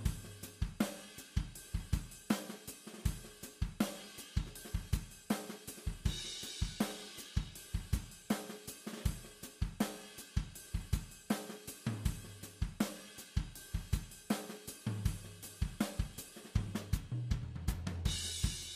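Background music with a steady drum-kit beat of hi-hat, snare and cymbals, and a low bass line that comes in about two-thirds of the way through.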